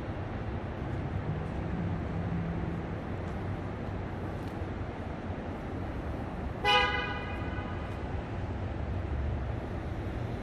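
Steady low rumble of city traffic, with one short car-horn toot about two-thirds of the way in.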